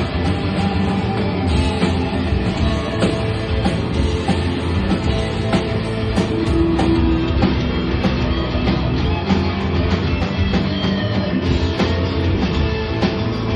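Rock music played by a band: electric guitar over a steady drum beat, with no singing.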